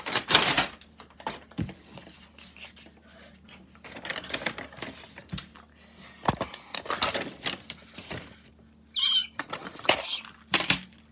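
Hands quickly handling small objects: irregular clicks, taps and rustles, louder at times.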